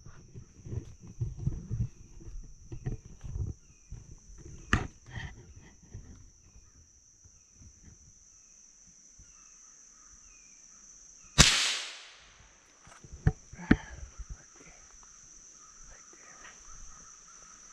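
A single loud gunshot about eleven seconds in, ringing off briefly, followed by two sharp clicks. Before it comes irregular rustling and scuffing of movement through undergrowth. Insects keep up a steady high buzz throughout.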